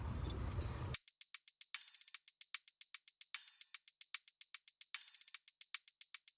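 A low steady rumble for about a second, then a fast, even run of crisp hi-hat- and tambourine-like percussion hits with no bass: a music beat.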